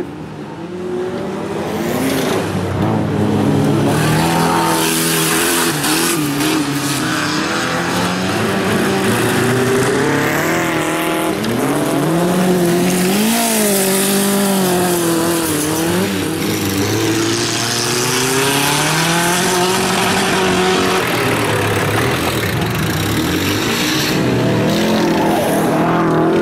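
Race car engines revving hard on a gravel track, their pitch rising and falling again and again with throttle and gear changes, over a steady hiss of tyres on loose gravel. A green VW Beetle bilcross car is the car in view.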